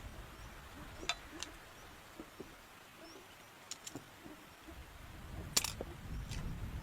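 Wind gusting against the microphone as a low rumble. It eases off in the middle and builds again after about four and a half seconds. Several sharp clicks come through it, the loudest about five and a half seconds in.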